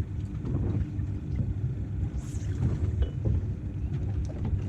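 Uneven low rumble of wind on the microphone over open water, with a few faint clicks and knocks.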